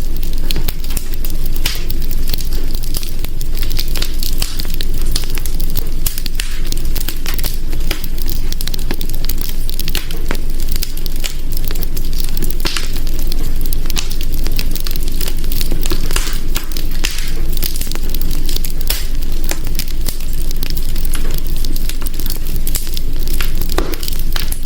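Wood fire crackling and popping, with many irregular sharp snaps over a steady low rumble of flames.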